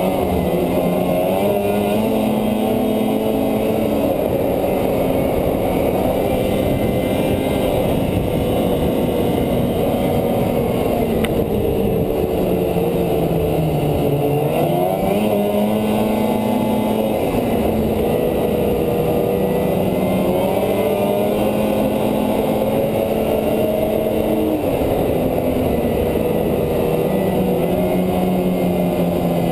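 Polaris 550 snowmobile's two-stroke twin engine running under way at a steady cruising speed. About halfway through, the pitch drops as the throttle eases off, then climbs again as it accelerates.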